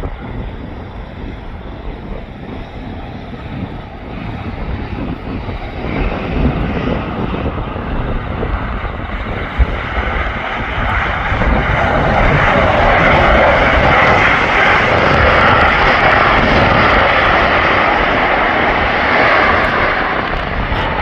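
Airbus A330-300 twin-jet airliner landing, its jet engine noise growing louder and staying loud from about twelve seconds in.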